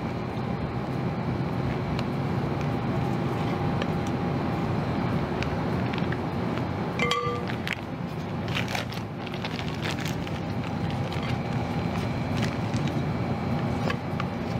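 Steady background hum with scattered light clinks of a spoon against a glass mixing bowl, as stiff meringue is scooped into a piping bag.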